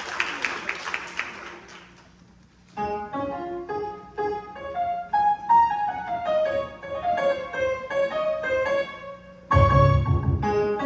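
Applause dies away, and after a short pause a piano starts playing a melodic introduction of single notes and chords. Near the end a loud, low boom sounds under the piano.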